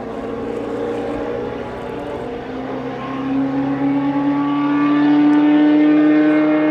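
Historic Formula 1 car engine running at high revs, its note slowly rising in pitch and growing louder over the first few seconds, then holding steady.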